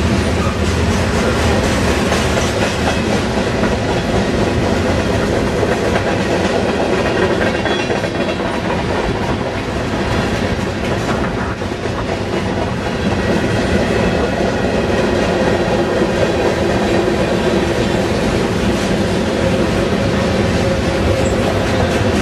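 Freight train of covered hopper cars rolling steadily past at close range: a continuous rumble of steel wheels on rail with rapid, even clicking over the track.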